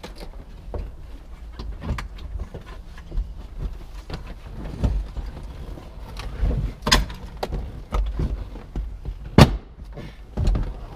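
Irregular knocks, clicks and clunks of dashboard parts and plastic push-in fasteners being pushed and worked into place by hand and tool, with the sharpest knocks about seven and nine seconds in.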